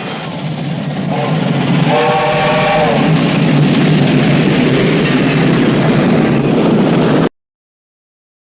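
Train sound effect: a train sounds two short chord blasts over a loud running rumble, which grows louder and then cuts off abruptly about seven seconds in, leaving silence.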